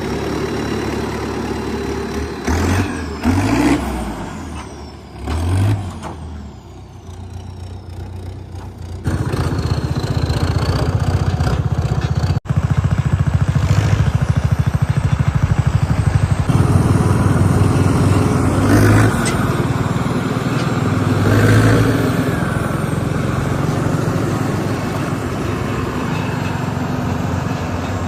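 Diesel tractor engine running steadily as the tractor drives along towing a cart. There are a few louder passing swells in the first several seconds, and the engine sound shifts abruptly a few times.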